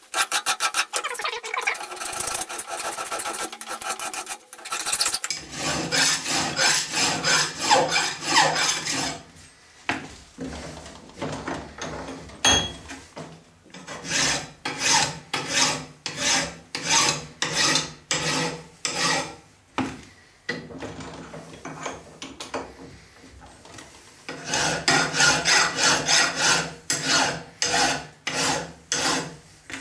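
Flat hand file rasping back and forth on a metal part held in a bench vise, in repeated strokes about one to two a second with a couple of short pauses. The filing is hogging off excess silver-soldered-on material, trimming it down to the part's contour.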